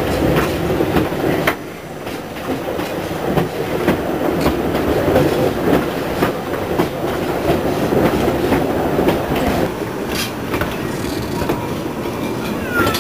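Narrow-gauge railway carriage running along the track, heard from an open-sided coach: a steady rumble with irregular clicks of the wheels over the rail joints.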